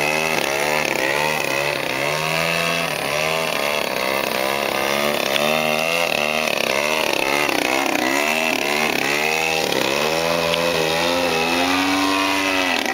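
Engine and propeller of a 2-metre 3D Edge radio-controlled aerobatic plane in flight, a continuous buzzing drone whose pitch swings up and down over and over as it manoeuvres, with a deeper dip about seven seconds in.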